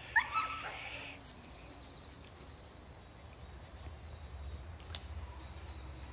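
Rural outdoor ambience: a faint, steady, high insect drone throughout. There is a brief rising pitched call right at the start, a low rumble in the second half, and a single click about five seconds in.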